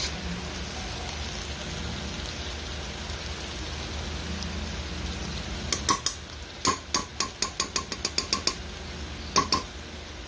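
Shrimp paste, tomato and onion frying in a nonstick wok with a steady sizzle; from about six seconds in, a quick run of about fifteen sharp clinks and knocks as a spatula and spoon stir the mixture against the pan.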